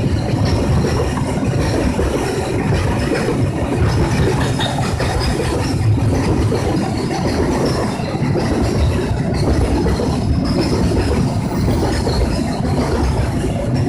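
A train running past on the rails: a loud, steady rumble of wheels on track.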